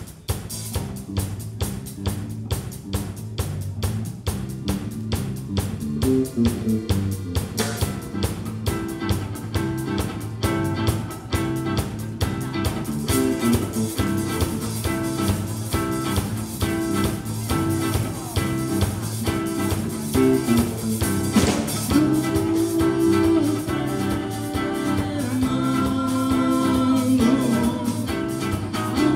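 A live ethno-rock band plays a song intro. A steady drum-kit beat runs from the start, and electric guitar, bass and accordion join it about seven seconds in.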